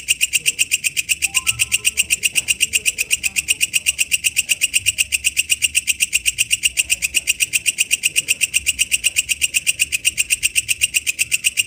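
Walang kecek (a katydid) calling: a steady, rapid train of high-pitched clicking pulses, about six or seven a second.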